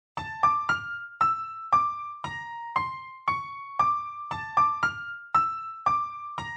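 Background music: a solo piano melody of single struck notes, about two a second, each ringing and fading before the next.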